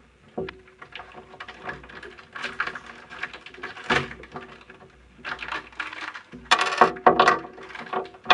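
Crinkly plastic wrapper of a small collectible packet rustling and crackling as it is torn open and handled, with the loudest crackling bursts about two-thirds of the way through.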